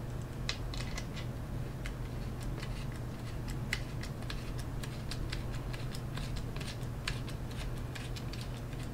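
Hand nut driver turning a quarter-inch bolt through an undersized hole in a plastic clamp, the bolt cutting its own thread: irregular small clicks and creaks, over a steady low hum.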